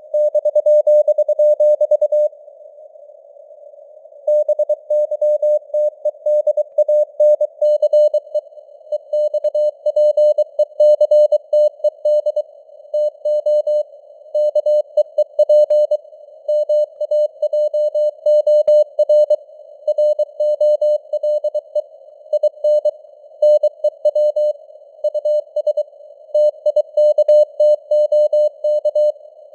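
Morse code sent at 23 words per minute: a single steady-pitched beep keyed on and off in dots and dashes, over a narrow band of hiss like a shortwave receiver tuned to a CW signal. About two seconds in the keying pauses for two seconds, leaving only the hiss, then resumes.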